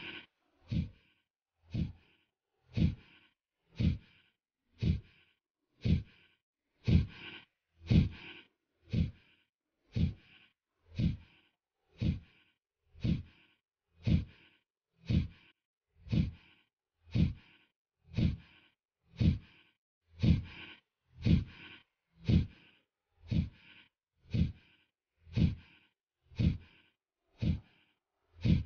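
Kapalbhati pranayama breathing: short, forceful exhalations through the nose, repeated steadily at about one per second.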